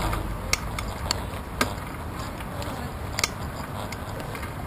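Bicycle rolling along a bridge walkway, picked up by a handlebar-mounted camera: a steady low rumble of wind and tyres with a few sharp clicks and knocks, the loudest about a second and a half in and again about three seconds in.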